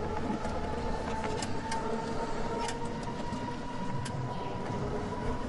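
Amusement park ambience: a steady mechanical hum of ride machinery with a low rumble and held tones, broken by a few sharp clicks.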